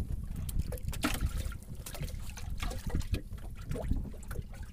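Water trickling and dripping with small, irregular splashes over a steady low rumble, as wet fish are handled in a fish trap aboard a boat.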